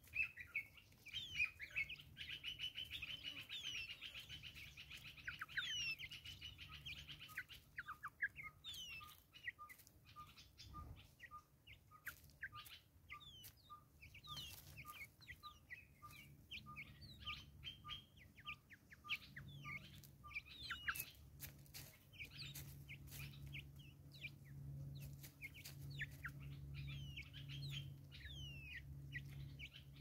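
Wild birds chirping and calling, a dense run of rapid chirps in the first several seconds, then a steady series of single notes at about two a second for much of the middle. Sharp clicks come throughout from Natal spurfowls pecking grain off a log.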